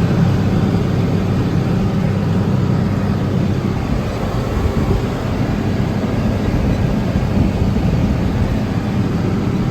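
Heavy farm machinery's diesel engine running steadily under load, a constant low drone with no change in speed.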